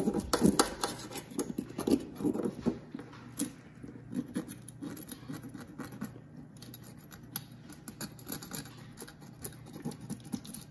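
Scales being scraped off a bluegill's skin in quick, irregular strokes, firmer in the first few seconds and lighter after, as missed patches are gone back over.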